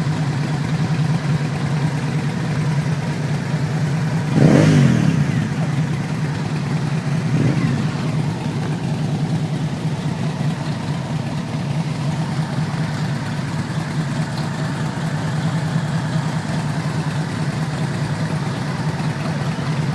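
Motorcycle engines idling steadily. About four and a half seconds in, an engine revs briefly and its pitch falls back; a smaller rev follows near 7.5 seconds.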